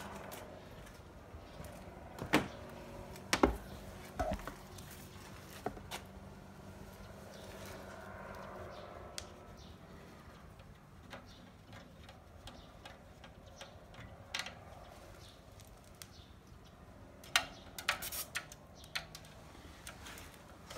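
Sharp clicks and clunks of a tyre inflator's metal air chuck and hose being handled and pushed onto a car tyre's valve, several in a quick cluster near the end, over a faint steady hum.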